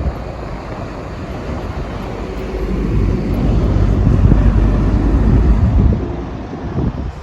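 Strong sandstorm wind rumbling on the microphone, swelling louder from about three to six seconds in, then easing.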